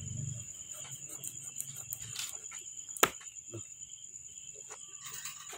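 A dull cleaver chopping through raw chicken onto a plastic cutting board: one sharp, loud chop about three seconds in, with fainter knife knocks and taps around it. A steady high chirring of crickets runs underneath.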